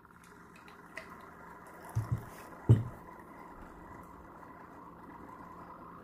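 Sboly single-serve coffee maker running steadily as it brews, a low mechanical hum with a faint whine. About two seconds in a cup knocks twice on the counter, then is set down with a sharper thump.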